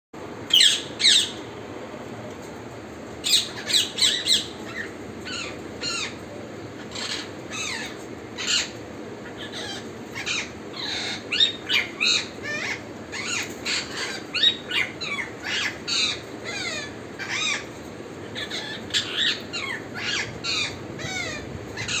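Male rose-ringed parakeet giving a long series of short, high-pitched squawking calls, often in quick bunches of two to four, over a steady low hiss.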